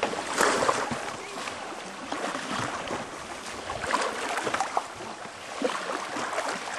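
Fast-running river water rushing around a coracle, with irregular splashes from paddle strokes.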